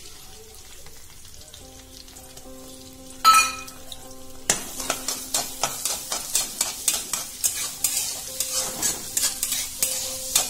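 Peeled garlic cloves frying in hot sesame oil in a steel wok: a loud metallic clang a little past three seconds in, then a sizzle that starts about four and a half seconds in, with a metal spatula scraping and stirring the cloves about twice a second.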